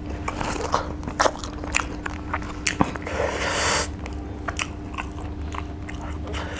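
Close-miked chewing and biting of rice and fish eaten by hand: a run of wet mouth clicks and small crunches, with a longer noisy stretch about three seconds in. A steady low hum runs underneath.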